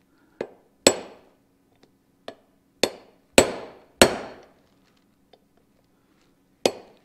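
Hammer striking a steel seal driver to tap a new oil seal into a PTO's pump-drive hub adapter: about seven sharp metallic strikes at an uneven pace, some light and some harder, each ringing briefly.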